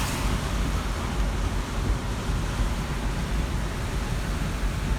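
Steady roar of wind and surf, with wind rumbling heavily on the microphone.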